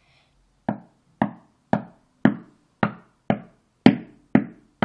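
About nine short knocks, roughly two a second, starting under a second in. The knocking comes from a cartoon playing on a television.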